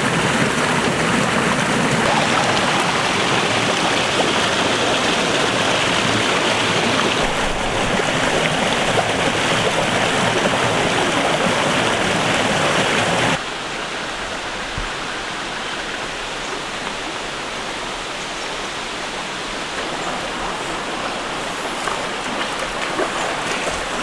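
Small waterfall and rocky forest stream rushing steadily. About halfway through the sound drops suddenly to a quieter, steady flow.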